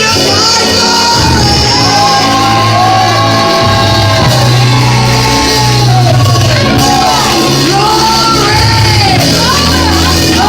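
Live gospel praise music: held bass and organ chords that change every few seconds, with a voice singing and calling out loudly over them.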